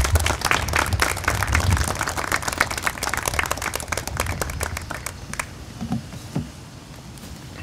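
Audience applauding, the clapping fading out about five seconds in.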